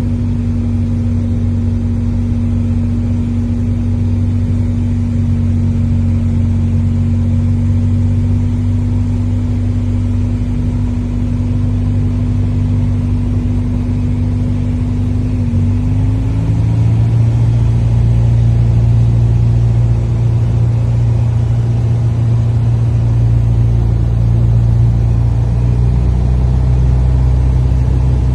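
Airliner engines heard from inside the passenger cabin: a steady low drone with a few even hums. About sixteen seconds in, one hum shifts in pitch and the drone grows louder, as the engine power changes.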